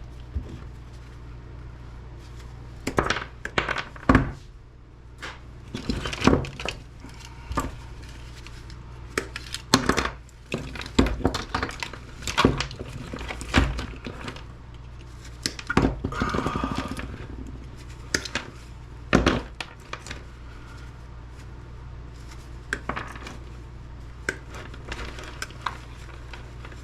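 Irregular clatter and knocks of small hard devices and scrap parts being handled and set or dropped down, a couple of dozen separate hits, over a steady low hum.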